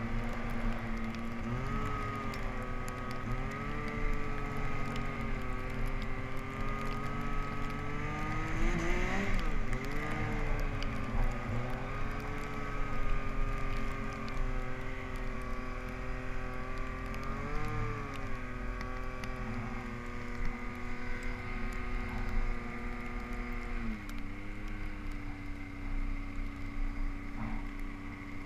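Yamaha Nytro snowmobile's four-stroke engine running hard through deep powder, its pitch rising and falling with the throttle, dipping sharply about nine seconds in and again around eighteen, and settling lower near the end.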